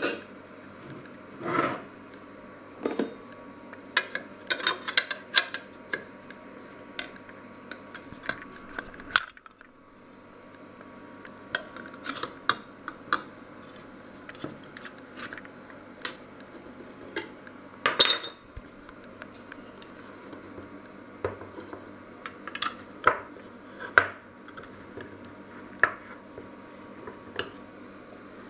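Scattered metallic clicks, clinks and knocks as a tin can is handled on a wooden worktop and its ring-pull lid is pulled open, the loudest a sharp crack about two-thirds of the way through.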